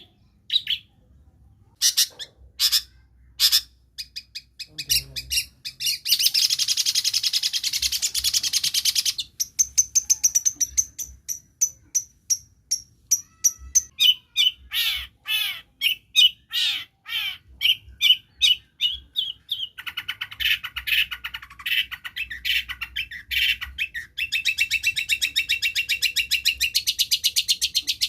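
Long-tailed shrike (cendet) singing a varied mimicking song. It gives separate sharp chirps, a harsh buzzy passage, quick runs of repeated notes with some falling slurs, and near the end a fast, steady chattering trill.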